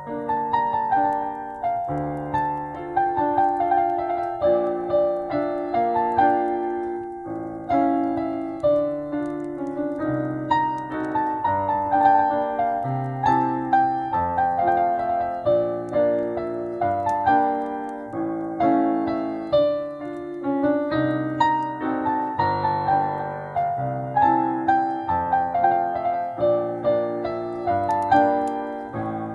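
Solo piano playing a gentle, slow melody over low bass notes in the left hand, with the faint crackle of a fireplace beneath it.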